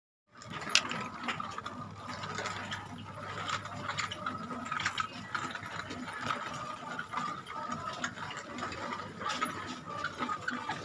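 Supermarket ambience: irregular small clicks and light rattling over a faint steady hum and a steady high tone.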